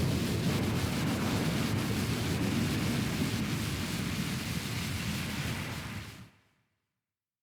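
A large fire burning: a steady, dense roar of flames with crackling, fading out about six seconds in.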